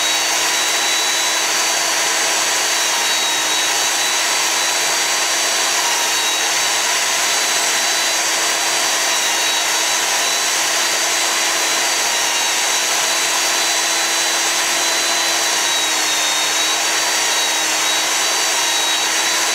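Benchtop belt sander running at a steady speed while a small wooden block is beveled on its belt. A steady motor hum with a high whine, its pitch dipping slightly a few times.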